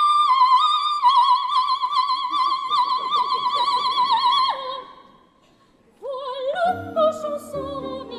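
Coloratura soprano singing opera: she holds a high note with a fast trill-like waver for about four and a half seconds, then drops briefly to a lower note and stops. After about a second of silence, singing resumes over orchestral accompaniment.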